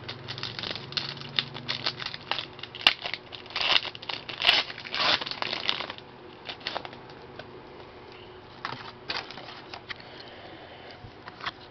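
Trading-card pack wrapper and cards being handled: crinkling and rustling. A cluster of louder rustles comes a few seconds in, then quieter sliding and flicking of cards.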